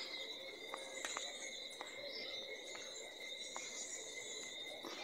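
Steady, high-pitched insect drone, like crickets, with a few faint scattered ticks.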